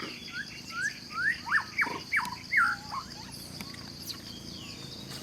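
A run of about eight short, high chirping calls, mostly rising in pitch, in quick succession over the first three seconds, over a steady high-pitched buzz.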